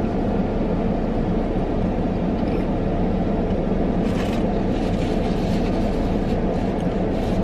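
Steady low hum of a parked car's engine idling with its climate fan running, heard from inside the cabin.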